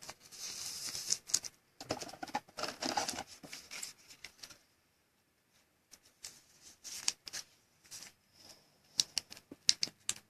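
Trading cards being handled by hand: rustling and sliding for the first few seconds, then a quiet spell and a run of light clicks and taps near the end.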